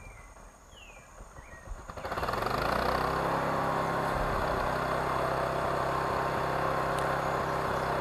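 Homemade band sawmill starting up about two seconds in, then running steadily: an engine note under the hiss of the turning band blade. Two short bird chirps come before it starts.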